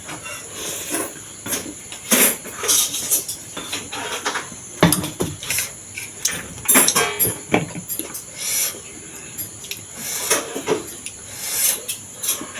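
A person eating momo and thukpa close to the microphone: irregular wet mouth sounds, chewing and slurping, with small clicks of utensils on dishes.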